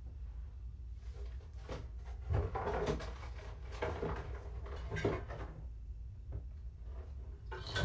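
Irregular knocks, clatter and rustling from a person rummaging and handling objects, over a steady low hum.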